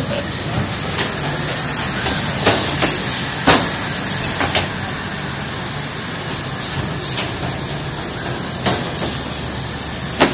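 Automatic case-making machine for lever arch files running: a steady mechanical hum and whirr with a few sharp clacks from its mechanisms.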